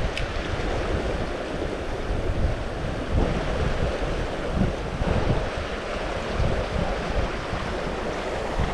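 Steady rushing water of a mountain trout river, with wind buffeting the microphone in uneven low rumbles.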